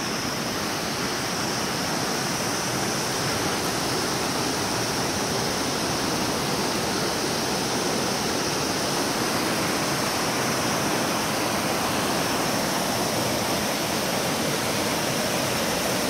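Steady rush of a narrow mountain stream running white over rocks.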